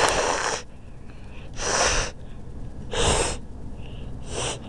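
Four short breathy bursts of noise, each about half a second long and roughly a second and a half apart, like loud breaths or sneezes close to the microphone.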